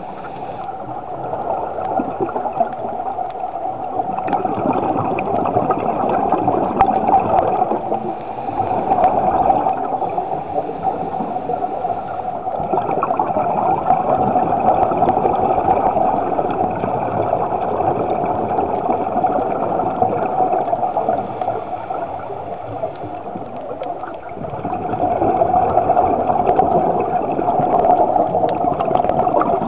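Underwater bubbling and gurgling from a scuba diver's regulator, a continuous rushing noise that swells and eases every several seconds.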